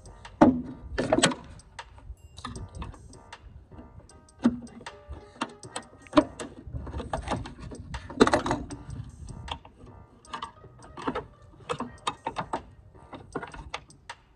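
Irregular clicks, taps and knocks of metal parts being handled as a trunk-lid gas strut is worked on with a flathead screwdriver, the loudest knocks about half a second in, at about a second and about eight seconds in.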